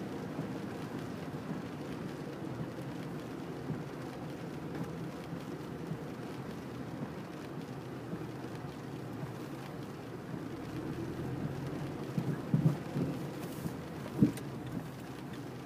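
Inside a moving car on a rain-soaked road: a steady low rumble of engine and wet tyre hiss with rain on the car. A few sharp knocks come near the end.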